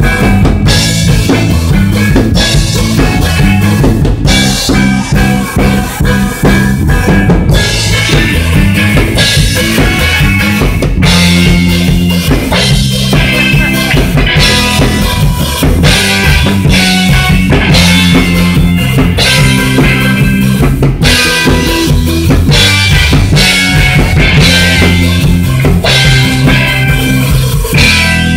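Live rock band playing loud: electric guitar through an amplifier over a drum kit beat.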